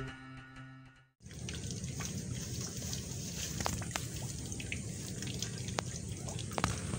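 Intro music fades out about a second in; after a brief gap, steady outdoor background noise with scattered small ticks and drips, like trickling water.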